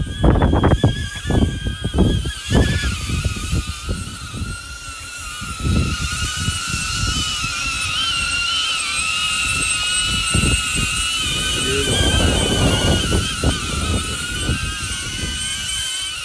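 DJI Avata drone's propellers whining steadily, the pitch wavering slightly, with gusty wind buffeting the microphone in low rumbles.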